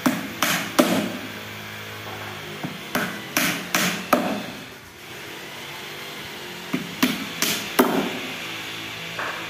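Hand hammer driving nails into a thin wooden strip along the edge of a laminated cabinet panel. The blows come in quick runs of three to five, with short pauses between runs.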